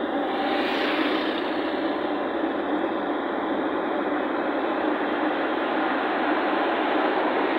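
Moving vehicle on the road: a steady rush of engine and road noise, with a brief louder swell about a second in.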